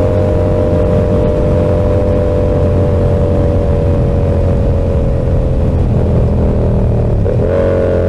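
Yamaha R7's parallel-twin engine through an SC-Project exhaust, running at a steady cruise with its note easing slowly lower. Near the end the note wavers twice and then steps up.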